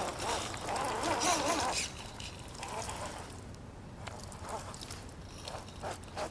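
Electric motor of an RC scale crawler truck whining and wavering up and down in pitch with the throttle, its battery down near the speed control's low-power mode. The whine stops about two seconds in, leaving faint scattered ticks and crackles.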